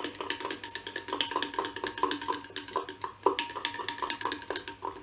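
Glass stirring rod clinking rapidly against the inside of a glass beaker, about four to five light clinks a second, with a short pause and then one louder knock a little past the middle. The rod is stirring a xanthan gum and coconut oil mix into the water base of a homemade shower gel, which is starting to thicken.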